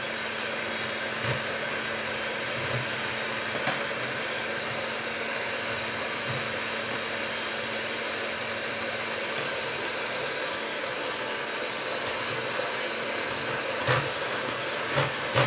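Electric hand mixer running steadily, its beaters whirring through thick butter-and-flour cake batter in a stainless steel bowl. A few short knocks sound about a third of the way in and near the end.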